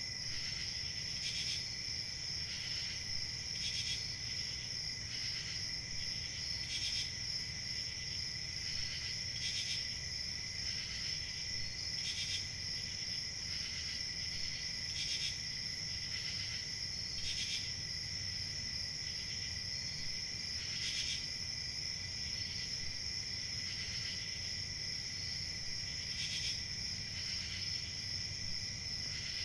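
Crickets chirping in a steady chorus: a continuous high trill with a fainter, lower steady note beneath it, and short louder chirps pulsing through every second or two at uneven intervals.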